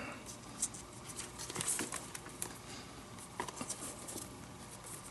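Leather lace on a lacing needle being worked and pulled through the fingertip lace holes of a Mizuno leather baseball glove: a string of soft, irregular scratchy rubs and small ticks.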